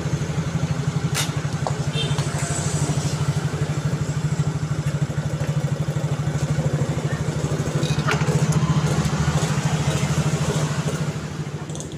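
Yamaha Mio J scooter's single-cylinder four-stroke engine running steadily at idle with an even, rapid pulse.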